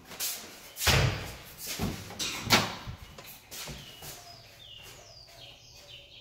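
Kitchen cabinet and appliance doors being opened and shut, with two sharp knocks about a second and two and a half seconds in, and smaller clunks between them.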